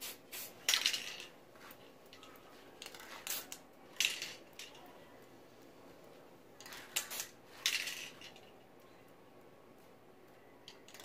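A few short scraping and clinking noises, in two clusters about a second in and near the middle and one more a few seconds later, as a round lid used as a paint mask is handled and shifted on the painting.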